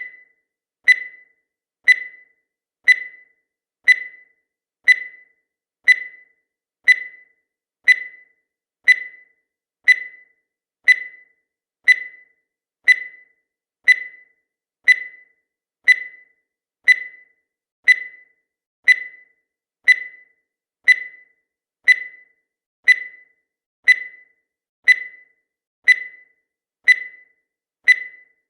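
Countdown timer sound effect: a short, high-pitched electronic beep repeating evenly once a second, each one dying away quickly.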